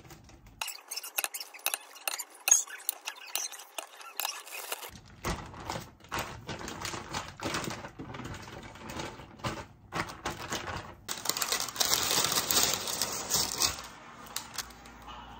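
Kitchen handling sounds: a ladle clicking against a glass mixing bowl and plastic zip-lock freezer bags crinkling, with many small clicks and then a denser rustle near the end as the filled bags are pressed flat.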